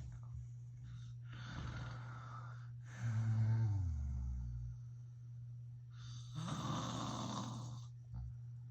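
A man snoring in his sleep: a loud snore about three seconds in that falls in pitch, between softer noisy breaths.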